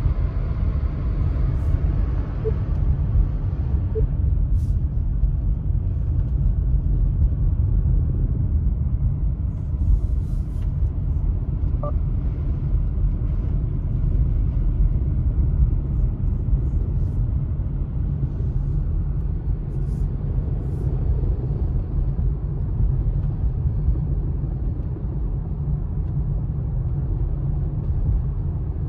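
Car interior road noise while driving on a wet road: a steady low rumble of engine and tyres, with a higher hiss that fades about four seconds in.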